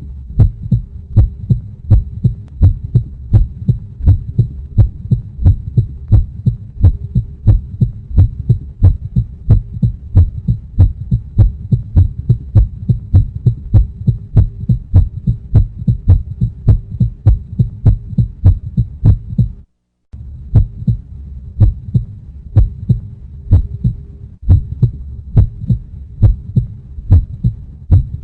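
Heartbeat sound effect: a steady rhythm of low thumps, about two a second, over a faint steady hum. It cuts out for a split second about twenty seconds in, then carries on.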